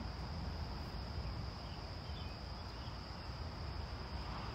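Crickets chirping in a steady, continuous high-pitched chorus, over a low rumble.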